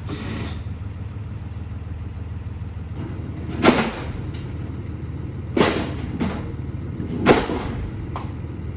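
Truck engine idling steadily, with three loud clunks about two seconds apart in the second half.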